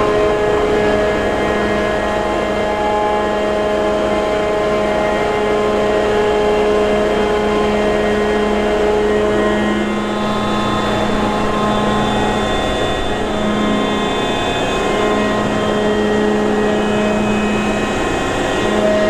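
Ship's machinery running steadily: a loud, even drone with several steady humming tones, its mix shifting slightly about halfway through.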